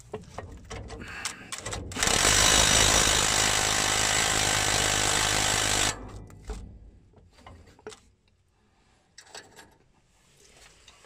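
Cordless impact wrench hammering steadily for about four seconds on a carrier bearing mounting bolt, then stopping suddenly. A few light knocks come before it and scattered small clicks after.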